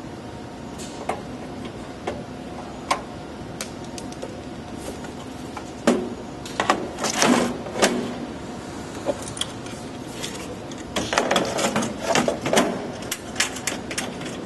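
Metal clicks, knocks and scraping as parts are handled and fitted into a sheet-metal tape library chassis: scattered single clicks, with busier clusters about six to eight seconds in and again around eleven to thirteen seconds. A steady low hum lies underneath.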